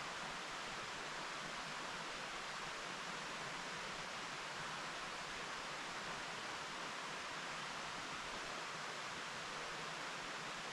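Mountain stream flowing over rocks: a steady, even rushing of water with no breaks.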